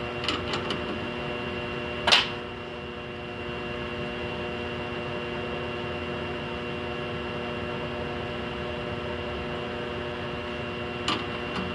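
A steady machine hum made of several tones, with a few light clicks at the start, a sharper click about two seconds in, and two more clicks near the end, like metal handling at the machine.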